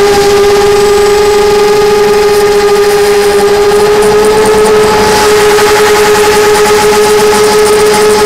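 FPV drone's electric motors and propellers whining steadily close to the onboard camera's microphone, a single high hum with overtones that rises slightly in pitch about halfway through.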